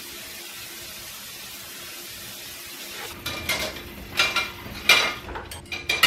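Water running steadily from a kitchen faucet into the sink. About three seconds in, metal pots and bowls start to clatter: six or so sharp clinks with a brief metallic ring.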